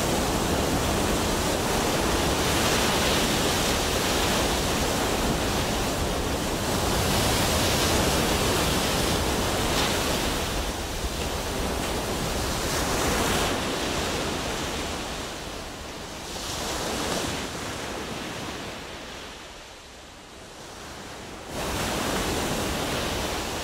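Ocean surf: waves breaking and washing in, the rush swelling and easing in long surges, falling low for a moment near the end before rising again.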